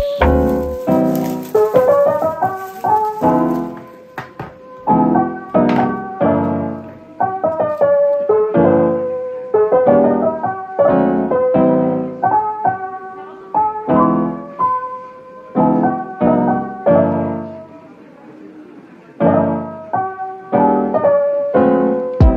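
Background music: a gentle piano tune of short, evenly paced notes.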